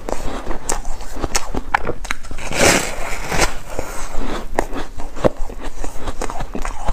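A mouthful of foam ice being chewed: a run of crisp crunches and crackles, with a denser, louder spell of crunching about two and a half seconds in.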